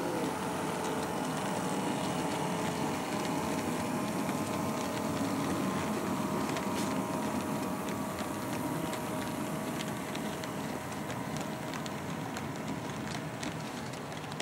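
HO scale model freight train running past, a steady hum with its wheels clicking over the rail joints; the clicks come more often in the second half.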